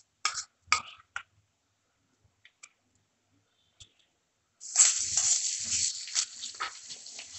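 Ginger-garlic paste, onions and green chillies sizzling in hot mustard oil in a kadai, with a metal spatula scraping and stirring; the loud sizzle and scraping start abruptly about two-thirds of the way through, after a near-silent stretch.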